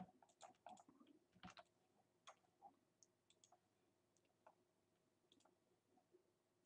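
Near silence with faint, irregular clicks of a computer mouse, more of them in the first couple of seconds, over a faint steady hum.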